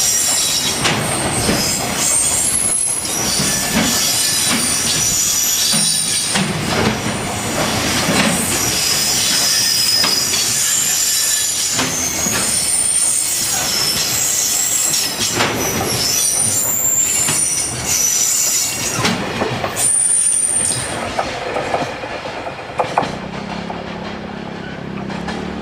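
Container wagons of a freight train rolling past over a level crossing, wheels clicking over the rail joints and squealing high-pitched. The noise dies away near the end as the last wagon goes by.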